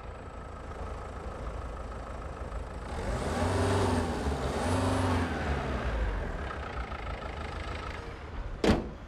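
A car engine runs steadily and is revved twice, rising and falling in pitch, a few seconds in. It is being run and revved to check that the car no longer stalls. A sharp knock comes near the end.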